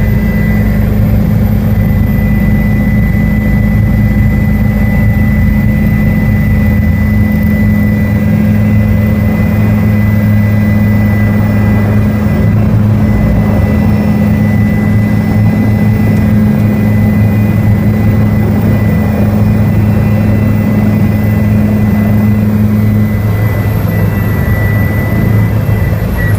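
Helicopter engine and rotor noise: a loud, steady low drone with a thin high whine above it. One of the low tones drops out near the end.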